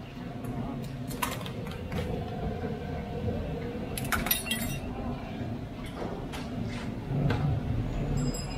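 Small enamelled metal teapots and china cups clinking and knocking as they are picked up and set down on a serving tray: a string of separate sharp clinks over a low steady hum.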